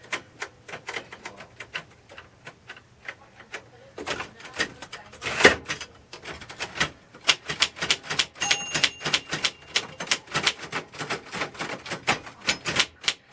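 Royal Safari manual typewriter being typed on: a run of irregular key strikes, light at first and heavier and quicker from about four seconds in. A short ringing tone sounds about eight and a half seconds in.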